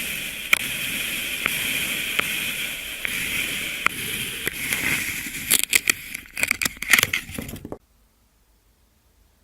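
Kinetic sand being worked: a steady hiss with scattered sharp ticks, then a couple of seconds of dense crunching crackles that cut off abruptly.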